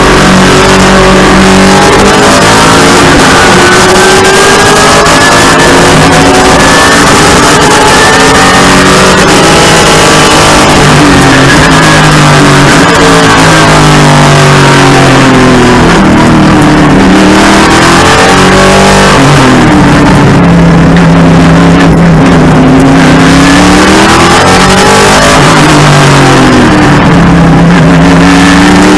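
TA2 race car's V8 engine heard from inside the cockpit, very loud, its revs climbing and then dropping away again and again as the car accelerates, shifts and brakes through the corners in racing traffic.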